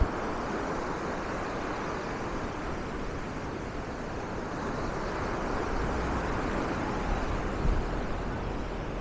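Surf washing up a sandy beach: a steady rush of waves that swells a little in the middle, with a few gusts of wind buffeting the microphone near the end.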